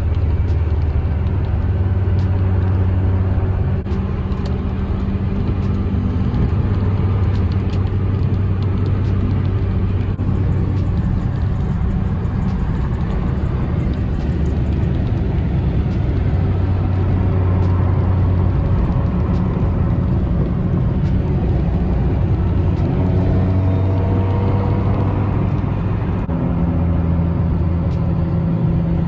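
Supercharged fourth-generation Toyota Camry cruising at highway speed, heard from inside the cabin: a steady, loud engine drone mixed with road noise, with the engine note rising for a few seconds near the end.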